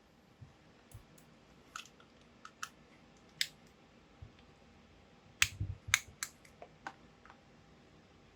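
Scattered sharp clicks and taps of a screwdriver bit working at the small, shallow screws of a Corsair H70 liquid cooler, the bit struggling to grip. The loudest cluster of clicks comes about five and a half to six and a half seconds in.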